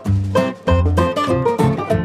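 Background music: quick plucked-string notes over a bass line, in a bluegrass or country style.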